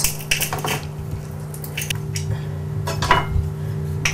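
Metal garlic press crushing a garlic clove, then a knife scraping the pressed garlic off it over a glass bowl: scattered short metallic clicks and clinks. A steady low hum runs underneath.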